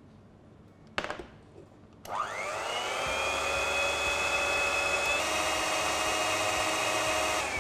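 Softry handheld electric mixer starting up with a rising whine about two seconds in, then running steadily as its beaters whip egg whites and sugar into meringue in a stainless steel bowl; its pitch shifts once about five seconds in. A short click comes about a second in, before the motor starts.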